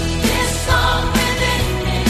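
Choir singing a Christian worship song with band accompaniment: drums keeping a steady beat under bass and held sung notes.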